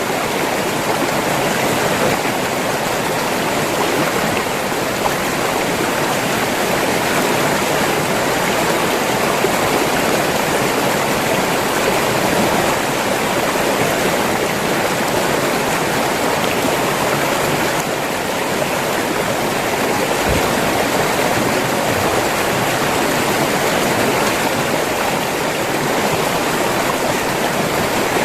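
River water flowing and rushing over rocks, a steady, dense, even splashing noise.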